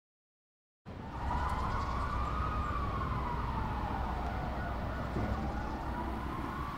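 An emergency-vehicle siren sounding a slow wail, rising and falling twice, over a steady low city rumble, starting about a second in out of silence.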